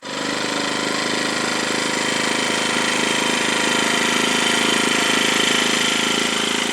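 An engine running steadily at constant speed with an even, unchanging note; it starts abruptly.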